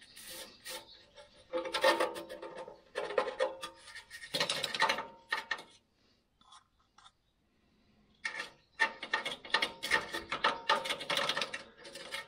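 A paintbrush scrubbing paint onto rusty sheet-steel sill panels in quick scratchy strokes. It comes in several runs with a pause in the middle.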